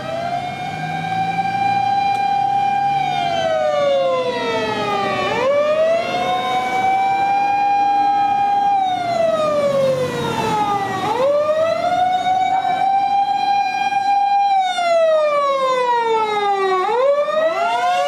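Fire engine siren wailing in a repeating cycle: it rises, holds a steady pitch for a couple of seconds, then slides down. It goes through this three times as the pump truck approaches and passes close by.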